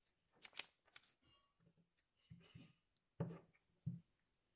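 Folded paper flaps of a homemade paper catalogue rustling and crinkling as they are handled and opened, with two soft thumps near the end.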